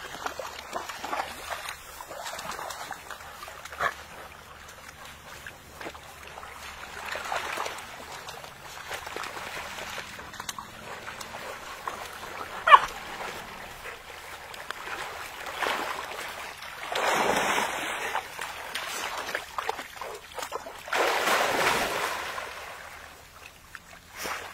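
Labrador retriever and puppies splashing through shallow pond water in surges, loudest in the second half, with a few short high puppy whimpers, the sharpest about halfway through.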